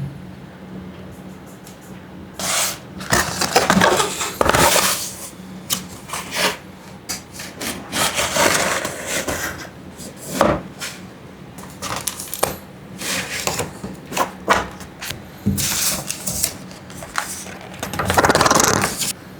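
Cardboard and plastic toy packaging handled and opened by hand: repeated bursts of rubbing and scraping, some sharper scratches, at an irregular pace.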